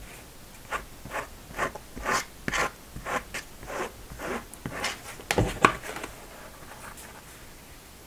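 Plastic gift card scraping glue across a paper towel in short strokes, about two a second, with a louder knock about five and a half seconds in.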